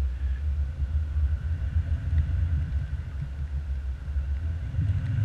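Wind buffeting an action camera's microphone from the airflow of a tandem paraglider in flight: a steady, fluttering low rumble.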